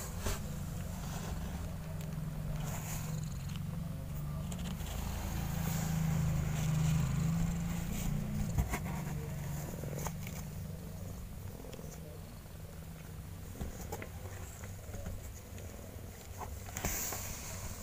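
Mother cat purring steadily while her newborn kittens nurse: a low, rapid rumble that swells a little around the middle and softens in the second half, with a few faint clicks.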